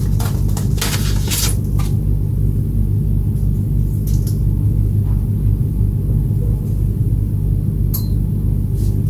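A steady low hum runs throughout, with a few light clicks and taps in the first two seconds and one more near the end.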